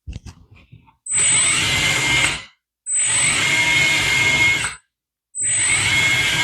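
XDRC-945 hydraulic RC excavator's track drive running three times in short bursts, a steady mechanical whine with gear noise, each start and stop separated by a brief pause. A few light handling clicks come first.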